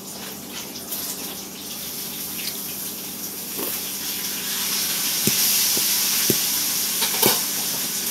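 Pork chops frying in a pan: a steady sizzling hiss that swells louder around the middle. Several sharp clicks of a fork against a dish come in the second half.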